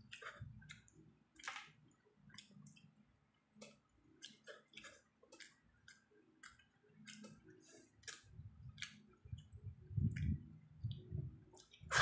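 Faint eating sounds: irregular small clicks and smacks of chewing and handling food, over a low rumble that grows louder near the end.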